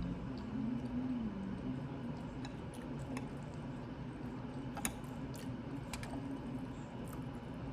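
A person chewing a mouthful of hot, sauce-covered french fries, with soft wet mouth sounds and scattered small clicks.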